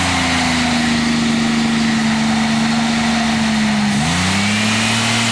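Car engine running at high revs with its throttle propped open by a piece of wood. The pitch holds steady, dips briefly about four seconds in, then climbs straight back up.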